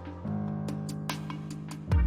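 Electronic background music: sustained bass notes that change about a quarter second in, regular hi-hat-like ticks, and a deep drum hit that drops in pitch near the end.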